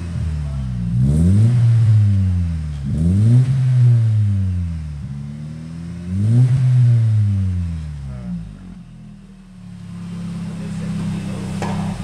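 GM C2NE 2.0 four-cylinder engine revved three times through a short 2.5-inch sport muffler held to the tailpipe, each rev rising and falling back. Near the end it settles back to a steady idle.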